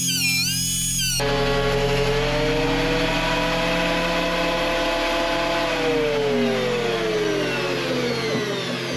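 A Triton planer thicknesser's motor and cutter block start running loudly about a second in, with a steady whine over a rushing noise. Over the last three seconds the pitch slides down as the machine winds down. Music plays briefly at the very start.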